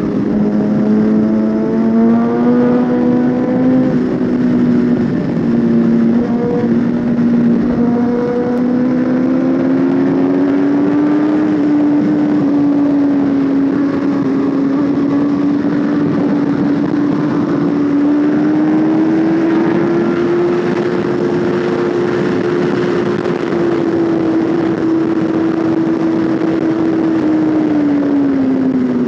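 Suzuki GSX-R1000's inline-four engine running steadily at riding speed, its pitch slowly rising over the first dozen seconds, holding, then dropping near the end, under steady wind and road noise.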